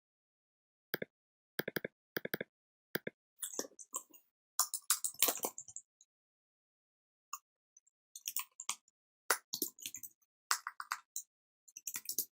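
Typing on the Anker ultra-compact Bluetooth keyboard's scissor-switch keys: irregular runs of light key clicks that start about a second in, with a short pause midway.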